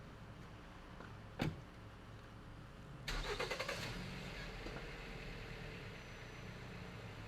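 A single sharp thump, then about three seconds in a car engine cranks with fast pulses for about a second, catches, and runs on steadily.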